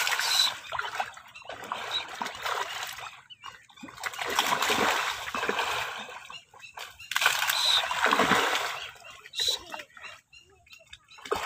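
Pond water splashing in about five bursts of one to two seconds each, as farmed fish thrash at the surface taking feed.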